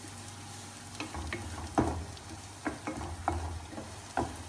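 Garlic and onion sizzling in olive oil in a pan, with a utensil scraping and tapping against the pan as they are stirred. The stirring knocks start about a second in, several in a row.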